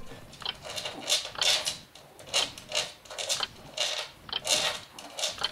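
Chihuahua scratching with its paws at the floor and the gap under a wooden cabinet, digging for a treat placed under a low obstacle: a run of short scratching strokes, two or three a second.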